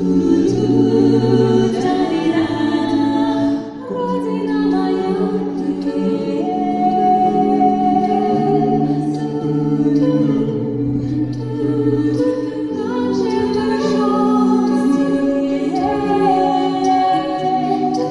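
A vocal ensemble singing in harmony, several voices holding long chords that change every second or two.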